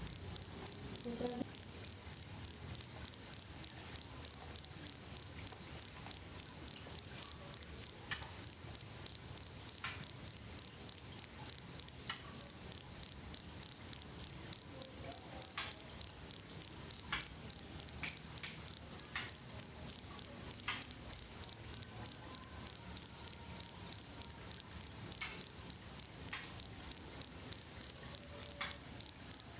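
A cricket chirping continuously: a loud, high-pitched song that pulses evenly several times a second without a break.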